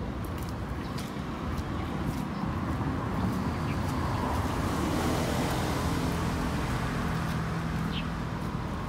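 Steady road traffic noise, swelling toward the middle as a vehicle goes by with a low engine hum, then easing off near the end.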